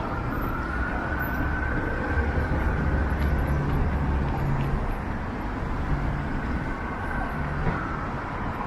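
City street traffic with a vehicle engine rumbling past, loudest a couple of seconds in. A faint siren wails slowly in the distance.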